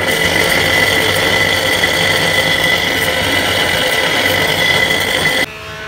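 Monoblock water pump's electric motor running with a steady high whine over a rough mechanical rattle, cutting off suddenly near the end.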